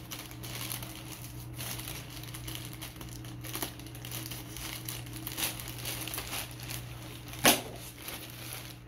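A plastic shipping mailer crinkling and rustling as it is cut open with scissors and handled. There is one louder, sharp crackle about seven and a half seconds in.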